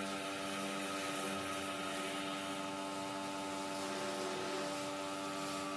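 A steady hum made of several unchanging tones over an even hiss.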